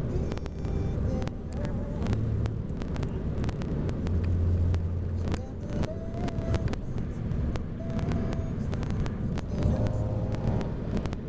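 Car driving on an interstate highway: steady road and engine rumble, with scattered light clicks.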